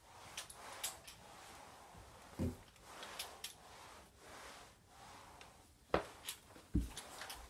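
Spray mop's microfiber pad swishing back and forth over a tile floor, with sharp clicks and knocks as the mop head bumps the door frame and baseboards, the loudest about six seconds in, and two dull thumps.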